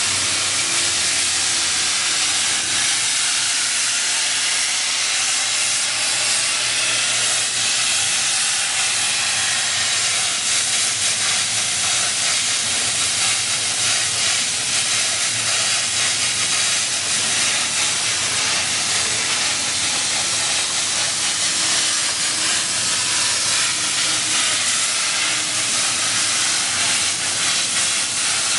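Hypertherm-powered CNC plasma torch cutting steel sheet: the plasma arc and its air jet give a steady, unbroken hiss.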